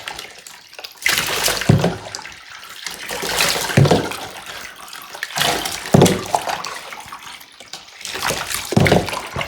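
Water splashing over a dog in a bath as the shampoo is rinsed off, coming in about four loud surges a couple of seconds apart with quieter trickling between.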